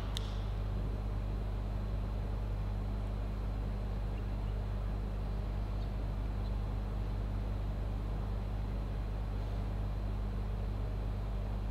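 Steady low hum under faint room noise, with no speech or music.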